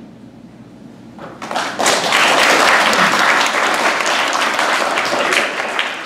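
Audience applause for a finished cello and piano performance, breaking out about a second and a half in, after a quiet moment as the piece ends, and continuing strongly.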